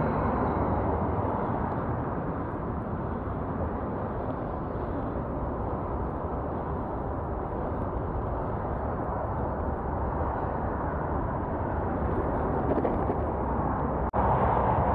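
Steady rushing noise of riding a bicycle, wind on the microphone mixed with road noise, briefly cutting out near the end.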